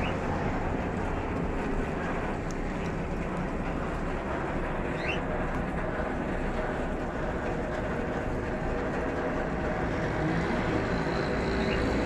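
Steady low rumble of outdoor background noise, with one faint, short rising chirp about five seconds in.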